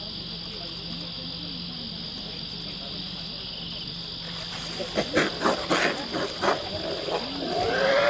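Steady high chorus of insects. About five seconds in, a quick run of loud thuds and splashes as a tiger bursts from a waterhole and charges. Near the end a wild boar starts to squeal as it is caught.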